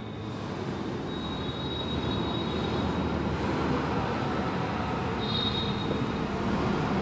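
Marker pen squeaking on a whiteboard in short writing strokes, over a steady rumbling background noise that slowly grows louder.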